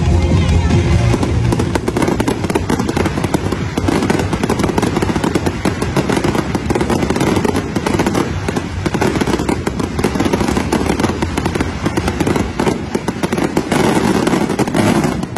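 Fireworks display: a continuous, rapid barrage of bangs and crackling from many shells bursting at once, including crackling glitter stars.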